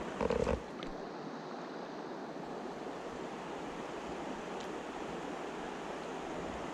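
Steady rushing of a shallow, stony stream flowing over rocks. A brief louder bump about half a second in.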